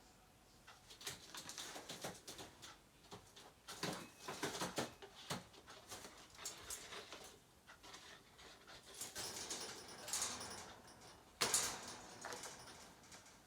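Pet Eurasian magpie playing: a scattered run of short taps, rustles and brief noisy sounds, with a louder burst about three-quarters of the way through.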